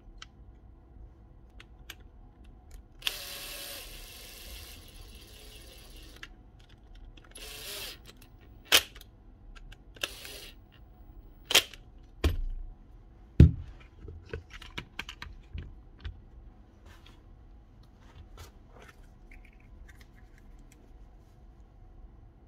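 Bench work on a cordless drill: a run of sharp plastic and metal clicks and knocks, with two heavier thumps near the middle and many light clicks after them. Two short rushing noises come early on.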